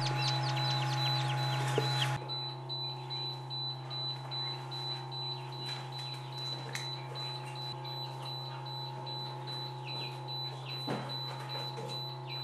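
Newly hatched partridge chicks peeping quickly and thinly over a steady machine hum from the incubator. About two seconds in, the peeping suddenly drops to fainter, scattered chirps, with the hum continuing.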